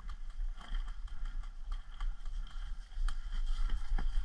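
Low rumble on the microphone with a few scattered sharp clicks of airsoft fire and BB hits, over a faint steady high hiss.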